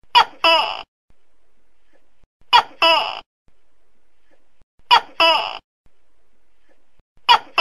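Tokay gecko calling its two-syllable "to-kek" call over and over, about every two and a half seconds: a short sharp first syllable and a longer second one that falls in pitch. Three full calls, with a fourth starting near the end.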